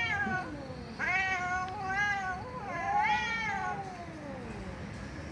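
Domestic cat meowing: a meow trailing off at the start, then two more drawn-out meows, the last one the longest and sliding down in pitch as it ends.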